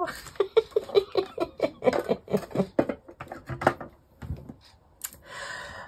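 A woman's light laughter: a quick run of short voiced pulses lasting about four seconds, followed by a soft low thump.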